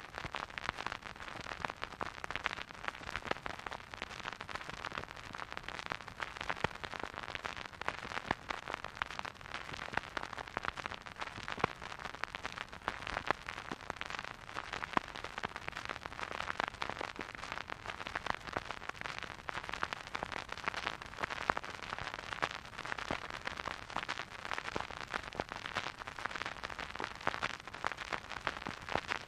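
Record player surface noise: a steady soft hiss with dense crackle and small pops as the stylus rides the spinning record.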